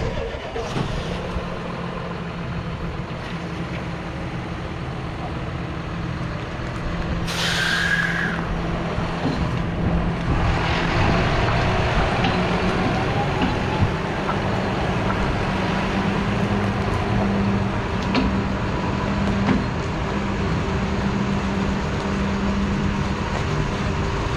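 Farm machine's diesel engine starting and then running steadily, slowly getting louder. About seven seconds in there is a short hiss of escaping air.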